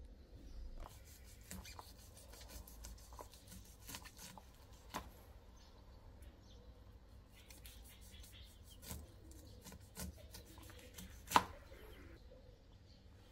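Light kitchen handling sounds: irregular small clicks and knocks of utensils and objects being set down, with one sharper knock about eleven seconds in.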